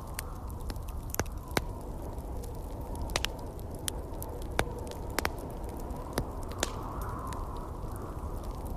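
Wood fire crackling and popping in a fireplace, sharp irregular snaps over a steady low rush of wind.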